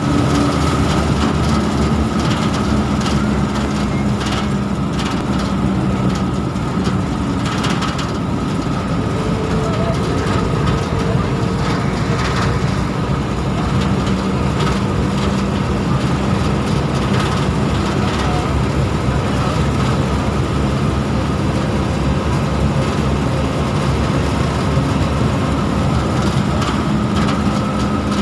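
Engine of a moving road vehicle running steadily, heard from on board, with road and wind noise.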